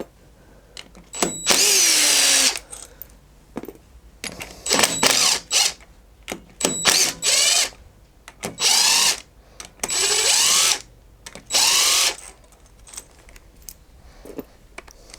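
Impact gun run in about six short bursts, each winding down in pitch as it stops, undoing the 10mm clutch spring bolts on a Yamaha TDM900's clutch.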